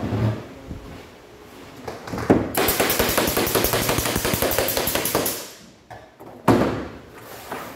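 A handheld power tool runs against a plywood panel for about three seconds with a loud, dense, gritty noise, then stops. A thump comes at the very start, and a sharp knock about a second after the tool stops.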